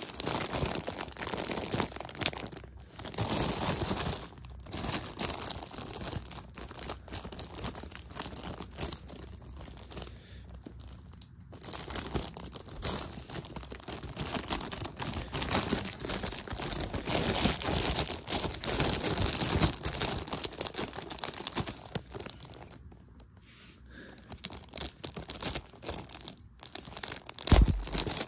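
Clear plastic bag crinkling and rustling as hands handle and open it around a plush toy, in long spells broken by short pauses. A loud thump comes near the end.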